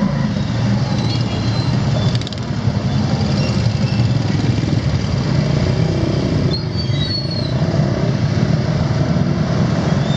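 Small motorcycle engines of a street full of motocarros (three-wheeled motorcycle rickshaws) running in traffic, heard from a ride in one of them as a steady, loud, low engine drone.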